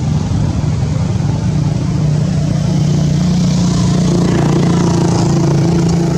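A motor engine running steadily, a loud low hum with a higher tone joining about halfway through.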